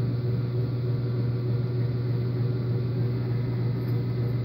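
Steady low electric hum of a motor or other shop machine, with one strong low tone and a few fainter higher ones.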